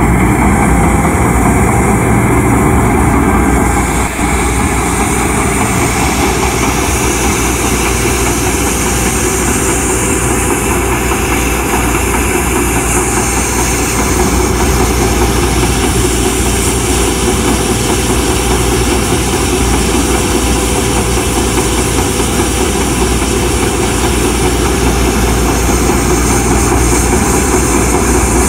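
Tennant 830-II street sweeper running steadily, its engine droning under the rushing of the rotating gutter broom brushing the wet pavement.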